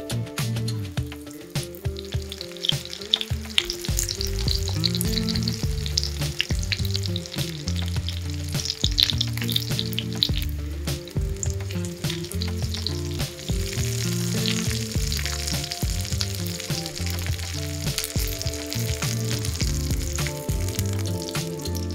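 Food frying in hot oil in a pan: a steady sizzle with scattered crackles and pops.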